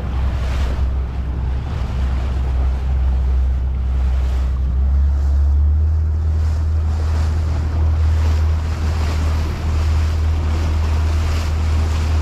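Motorboat under way at sea: a steady low drone, with water rushing along the hull and wind buffeting the microphone. The low drone grows louder about halfway through.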